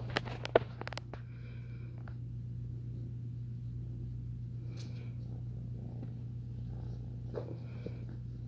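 Ten-week-old tabby kitten purring steadily as it is stroked, with a few light clicks in the first second.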